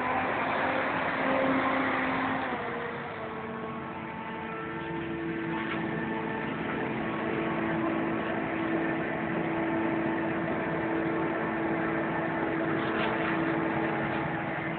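Diesel engines of farm machinery running close by: a John Deere tractor passes, its engine note dropping in pitch about two to three seconds in. Then comes the steady drone of a Claas Jaguar 840 forage harvester chopping maize.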